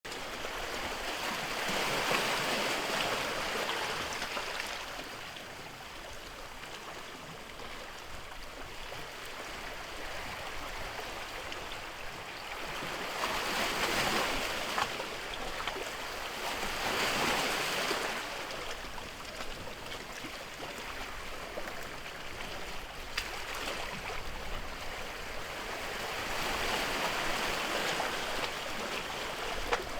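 Sea waves washing onto the shore, the surf swelling and falling back every few seconds.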